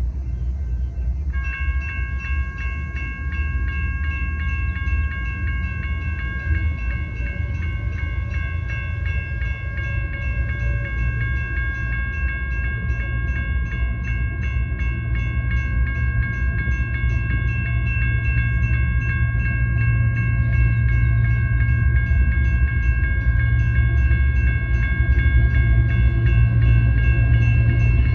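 A railroad crossing bell starts ringing about a second in and keeps ringing with evenly repeated strokes. Under it, the low rumble of an approaching BNSF intermodal train led by GE diesel locomotives grows steadily louder.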